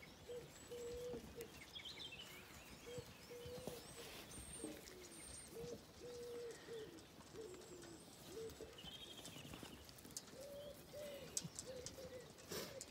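Faint, low cooing of a pigeon, short coos repeated phrase after phrase, with small birds giving faint high chirps.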